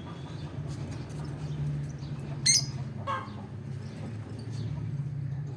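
Peach-faced lovebird (olive mutation) giving two short, sharp chirps about half a second apart, the first higher and louder, over a steady low hum.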